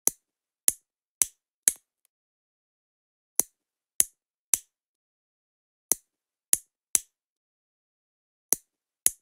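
Snipping sound effect of a cuticle nipper cutting toenails: about a dozen short, sharp clicks in quick runs of three or four, with brief pauses between runs.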